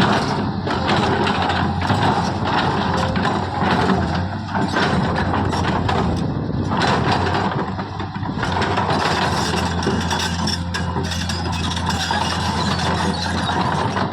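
Diesel engine of a JCB earthmoving machine running steadily, with irregular mechanical clatter and knocking from the machine's working parts.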